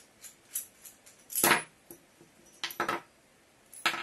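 Small metal parts of a knife-sharpener clamp and a hex driver being handled, with light clicks, one louder clatter about one and a half seconds in, and a few more knocks near the end.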